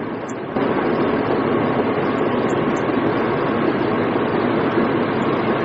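Steady rushing noise with no distinct impacts, stepping up abruptly in loudness about half a second in.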